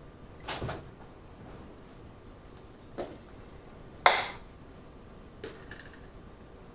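A handful of short eating and utensil noises. The loudest, about four seconds in, is a fork scraping through spaghetti in a glass bowl. Smaller clicks and mouth sounds come before and after it.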